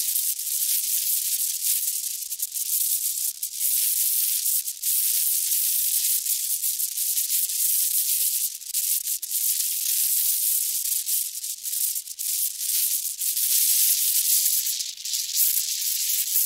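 Wind noise: a thin, airy hiss with no low rumble, swelling and easing without a break, with scattered faint crackles. A faint high whistle joins it near the end.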